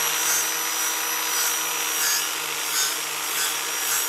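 Angle grinder with a sanding disc running steadily against a steel refrigerant cylinder, stripping its blue paint. A steady motor whine runs under the rasp of the disc on the metal.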